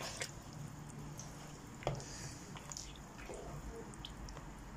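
A black spatula stirring a thick tomato stew with chunks of meat and cow skin in a non-stick pot: wet squelching and sloshing, with a few light clicks of the spatula against the pot.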